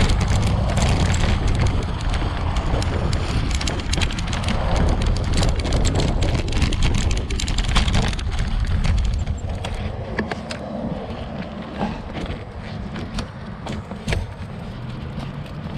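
Bicycle tyres rolling over loose gravel and graded dirt: a steady crunching full of small crackles and rattles, with wind rumble on the microphone. It gets quieter about nine seconds in.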